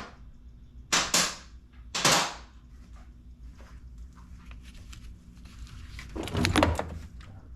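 Sharp knocks and clanks of tools and parts being handled while the truck's battery and battery tray are taken out: two knocks about a second in, one at two seconds, and a short cluster of rattling knocks near the end.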